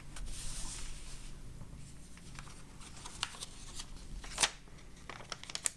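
Sheet of paper rustling and crackling as it is folded and pressed flat into a paper airplane wing. A soft rustle in the first second, then a few short, sharp crackles in the second half.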